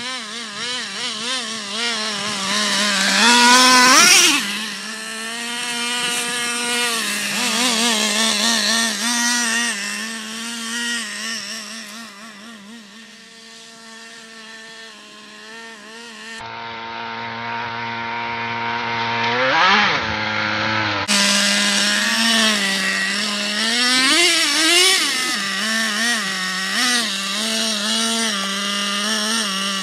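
Traxxas Revo 3.3 RC truck's small two-stroke nitro engine running with a warbling note, blipped up in sharp revs about four seconds in and again around twenty seconds, and quieter for a stretch in the middle.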